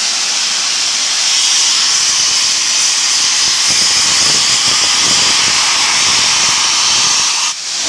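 Pere Marquette 1225 Berkshire steam locomotive venting steam from its open cylinder cocks while moving slowly: a loud, steady hiss that drops off briefly near the end.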